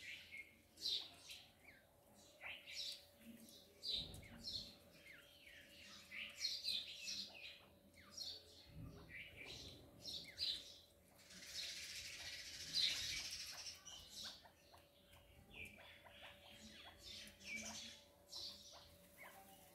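Chukar partridge chicks peeping: a steady run of short, high calls, with a few seconds of rustling around the middle.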